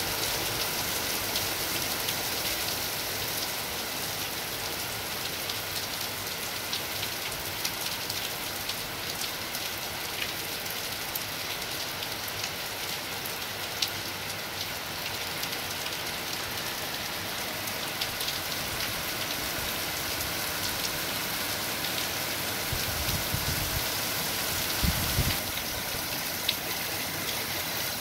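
Heavy rain pouring down steadily: a dense, even hiss dotted with the ticks of single drops. Two brief low bumps come near the end.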